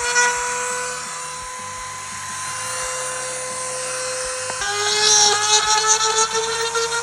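Small high-speed electric rotary tool whining steadily while it cleans weld flash out of the gasket groove of a welded PVC window sash. About four and a half seconds in, its pitch drops as it bites into the plastic, and a rasping cutting noise rises over the whine.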